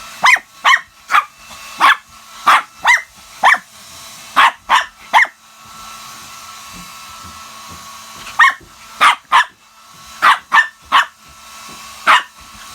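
Shih Tzu barking sharply and repeatedly at a running hair dryer, in two runs of barks with a pause of about three seconds in the middle. The hair dryer's steady hum runs underneath.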